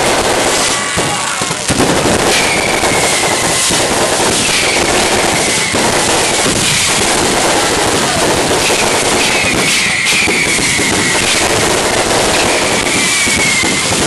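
Fireworks going off at close range: a continuous dense crackling with many sharp bangs, and several short, slightly falling whistles.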